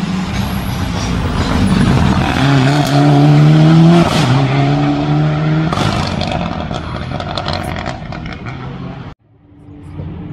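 Rally car engine accelerating hard past the spectators, its note climbing through one gear, shifting about four seconds in and climbing again, loudest at the shift, then fading as it goes away. The sound cuts off abruptly a little after nine seconds to a quieter engine.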